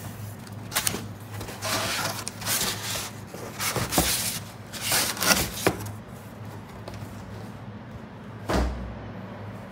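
Corrugated cardboard shipping carton being handled: flaps scraping and rustling in a series of short scuffs over the first six seconds, then a dull thump about three-quarters of the way in. A steady low hum runs underneath.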